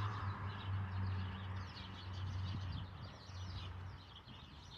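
A group of birds chirping and twittering in a tree, many short high chirps overlapping one another. A low steady hum lies underneath and fades out about three seconds in.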